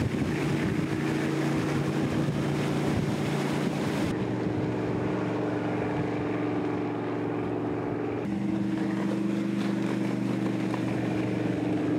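Donzi 22 Classic powerboat running at speed, its engine droning steadily over the rush of water and wind. The engine note changes abruptly about four seconds in and again about eight seconds in.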